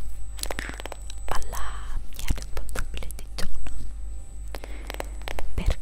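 Hair brush bristles rubbed and scratched right against the microphone, giving dense, irregular crackling clicks, with soft whispering in between.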